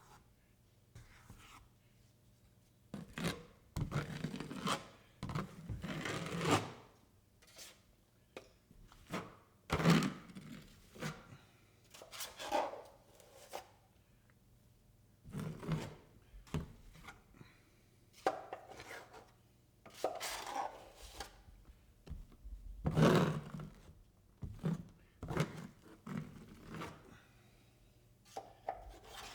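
Drywall knife scraping joint compound over the wall and corner bead in irregular strokes, each about half a second to a second long, with pauses between.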